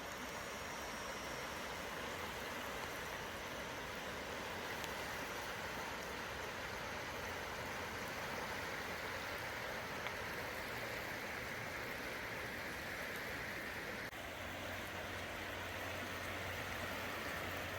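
Steady, even rushing outdoor noise with no distinct events, dipping briefly about fourteen seconds in.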